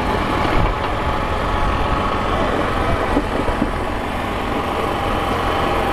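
Ford TW-25 pulling tractor's engine idling steadily.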